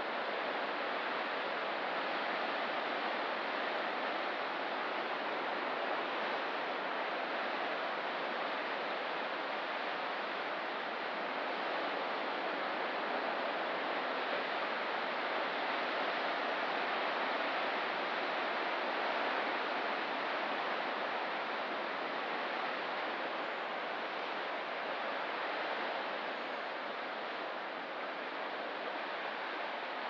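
Steady wash of ocean surf: an even hiss without distinct breaking waves, easing slightly near the end.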